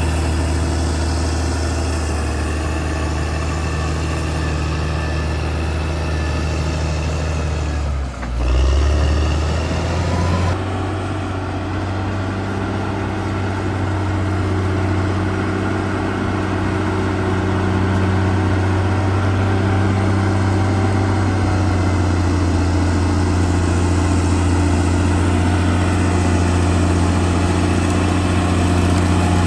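Caterpillar D6R XL bulldozer's diesel engine running steadily. Its note dips briefly about eight seconds in, then comes back up.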